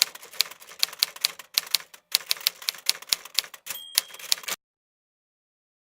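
1923 Royal 10 manual typewriter being typed on: sharp keystroke clacks about four to five a second, with short pauses, and a brief ringing tone about four seconds in. The typing cuts off suddenly about half a second later.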